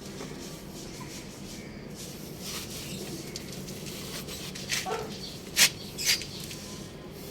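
Chickens making a few short, sharp calls about five to six seconds in, over a steady background hiss; no rooster crow is heard.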